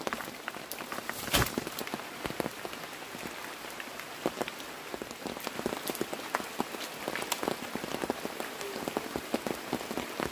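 Rain falling, a steady patter of many small drops, with one louder knock about a second and a half in.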